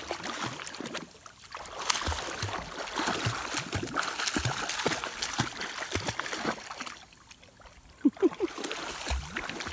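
Creek water splashing and sloshing irregularly around wading legs and paws, with many small knocks, over the running stream. A couple of brief louder sounds come about eight seconds in.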